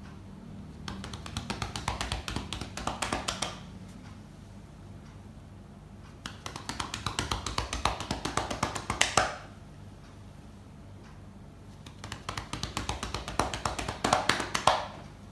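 Hands clapping rapidly on a patient's upper back in chest percussion, in three bursts of about three seconds each with short pauses between; the percussion loosens secretions in the upper lobes so they can drain.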